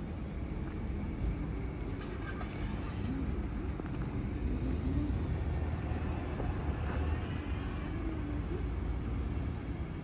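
Town street ambience: a steady low rumble of road traffic.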